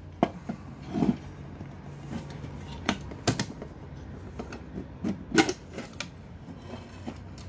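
Aluminium camping pots from a nested Quechua cook set knocking and clinking as they are handled and pulled apart: a few separate sharp knocks, the loudest about five seconds in, over a low steady hum.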